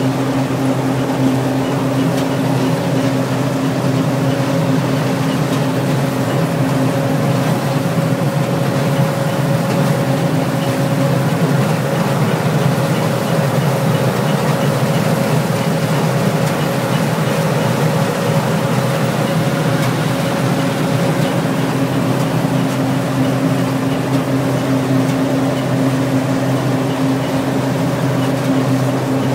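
Harvest machinery's diesel engine running steadily at an even pitch.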